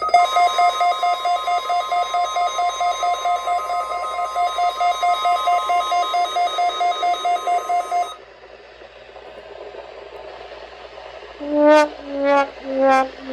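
NOAA Weather Radio warning alarm tone, a steady 1050 Hz tone, sounding together with a fast pulsing alarm beep. Both cut off suddenly about eight seconds in, leaving radio hiss, and near the end come four short tones, each sliding slightly down.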